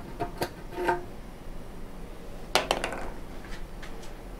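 Light clinks and knocks of a ceramic cup held against the metal of a small engine's carburetor and fuel line, with a louder clatter that rings briefly about two and a half seconds in.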